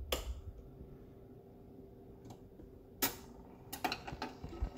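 Clicks from the controls and changer mechanism of a Commodore record player: a knob clicks at the start, a sharp click comes about three seconds in, and a run of small clicks and knocks follows near the end, over a faint steady hum.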